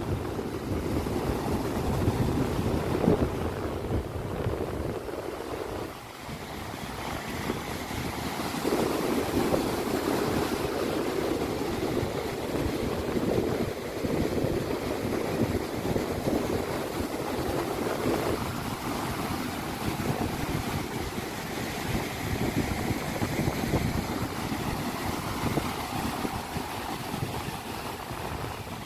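Storm wind buffeting the microphone over heavy surf breaking on a beach: a continuous rough rushing noise that swells and eases, dipping briefly about six seconds in.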